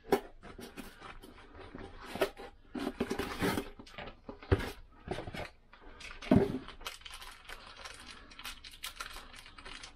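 Small metal parts and tools clinking, clicking and rattling on a workbench as hands search out and handle wire piston circlips, with a sharper knock about four and a half seconds in and the loudest knock about six and a half seconds in.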